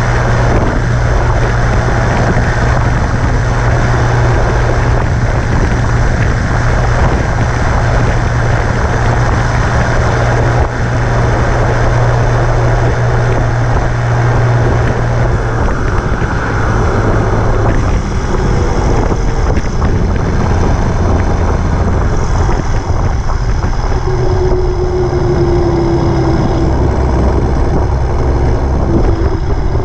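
Massey Ferguson 8130's straight-piped Perkins 1006.6 turbo diesel six-cylinder pulling the tractor along the road, loud and steady, its note dropping a little past halfway through. Wind buffets the microphone throughout.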